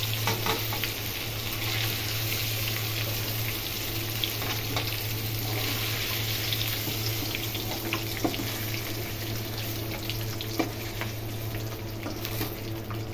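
Oil sizzling steadily in a steel kadai as cubes of paneer shallow-fry, with a few light clicks of a metal spatula against the pan and plate.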